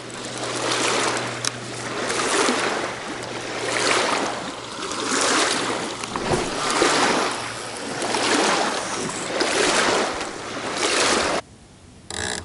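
Small waves washing against the riverbank in a steady rhythm, swelling and fading about once a second. The sound cuts off suddenly near the end.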